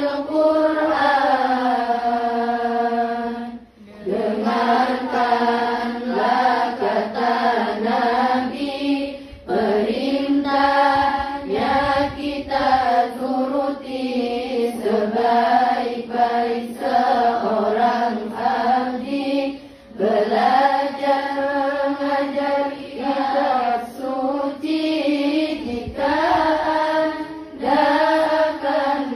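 A group of girls chanting sholawat together in unison, in long drawn-out phrases broken by brief pauses between lines.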